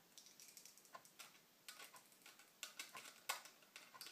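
Small screwdriver driving a screw into the side of a SanDisk SSD: faint, irregular clicks and ticks from the driver and screw, the loudest a little past three seconds in.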